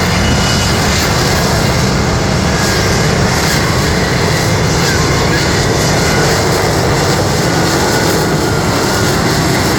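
Jet engine noise from an F-35 Lightning II's single F135 turbofan, loud and steady.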